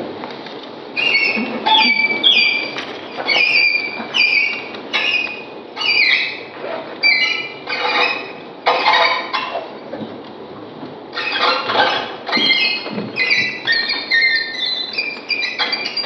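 Violin playing high, squeaky notes in short sliding phrases, mostly falling in pitch, with brief gaps between them and a busier run of notes near the end.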